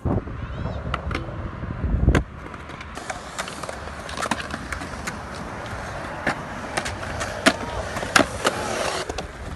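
Skateboard wheels rolling on concrete, with repeated sharp clacks of boards striking the ground and a heavy thud about two seconds in.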